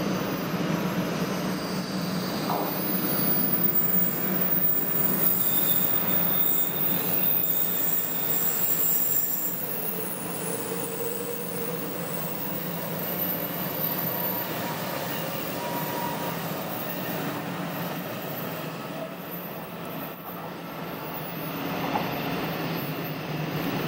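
JR West 500 series Shinkansen train running out of the station, loudest over the first several seconds and then fading as it pulls away.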